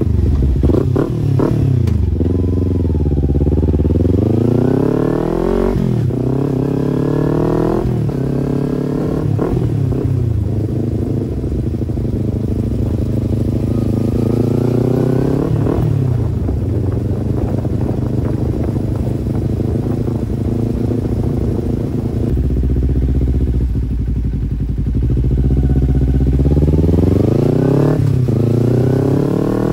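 Motorcycle engine on the move, revving up through the gears: its pitch climbs three times in quick succession, dropping at each shift, then holds steady, climbs once more, eases down for a while, and pulls up again near the end.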